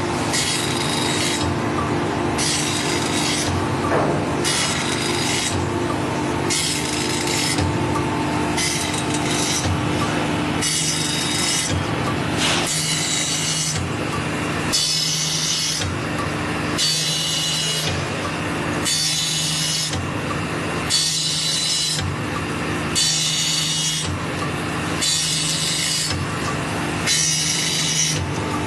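Automatic circular saw blade grinding machine running with a steady motor hum, its grinding wheel taking one hissing stroke across a blade tooth about every two seconds as it indexes from tooth to tooth.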